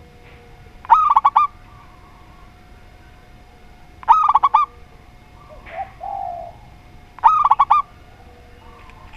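A zebra dove and a spotted dove cooing. Three loud, quick runs of high coos come about three seconds apart, and a softer, lower coo falls between the second and third.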